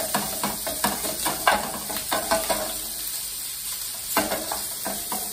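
Wooden spoon scraping and knocking in a frying pan while chopped sausage patty sizzles in olive oil: irregular scrapes, two or three a second, over a steady sizzle.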